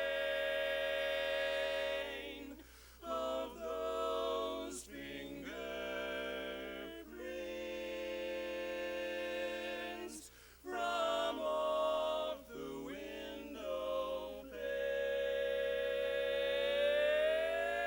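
Barbershop quartet singing a cappella in close four-part harmony. Short sung phrases alternate with long held chords, and the last chord swells and slides slightly upward near the end.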